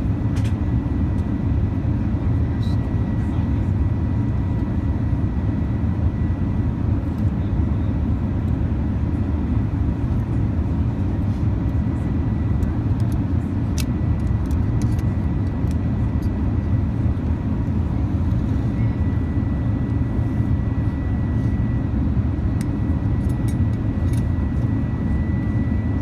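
Steady low drone of an airliner cabin in flight, with a few light metal clicks from a seatbelt buckle being handled, clearest about halfway through and again near the end.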